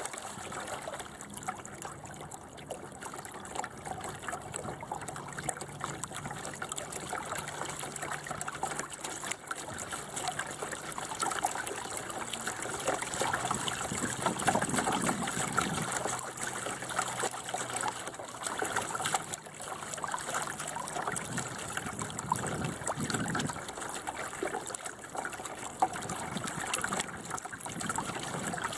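Water gurgling and trickling along the hull of a small sailing dinghy under way, a steady uneven wash with no let-up.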